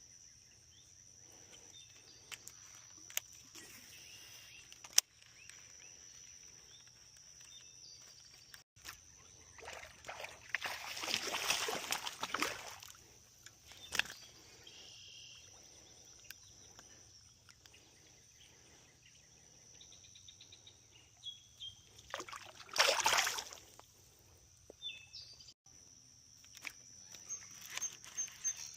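Quiet outdoor fishing ambience with a faint steady high-pitched tone, a few sharp clicks, and two rushing, swishing noises, one about ten seconds in lasting a few seconds and a shorter one a little past twenty seconds.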